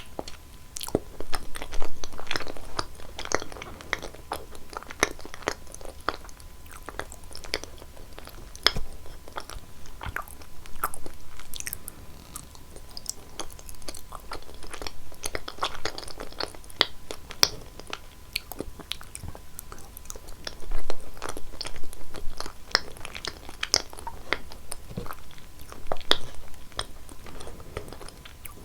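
Close-miked eating sounds of cheese being bitten and chewed: a dense, irregular run of wet smacks and crisp little clicks and crunches.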